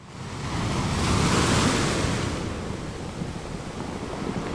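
Sea waves breaking and washing in, one wash swelling to its loudest in the first two seconds and then easing off, with wind rumbling on the microphone.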